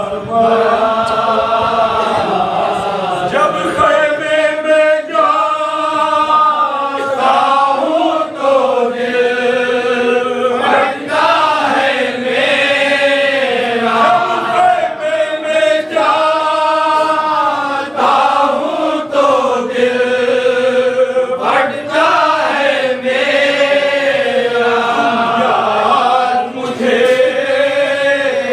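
A group of men chanting a marsiya, an Urdu elegy for Imam Husain and the martyrs of Karbala, together in long, repeated melodic phrases without instruments.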